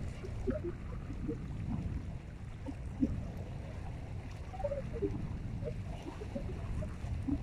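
Small waves lapping and gurgling at the lake's edge, in short scattered splashes, over a steady low rumble.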